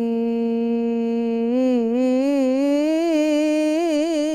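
A woman's solo unaccompanied voice singing Islamic devotional inshad: one long steady note, then from about a second and a half in, wavering melismatic turns up and down around it.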